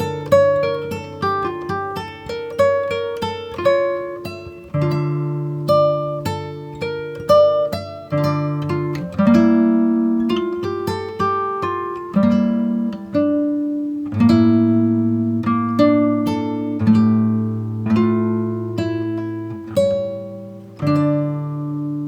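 Background music played on plucked guitar: picked notes over sustained bass notes.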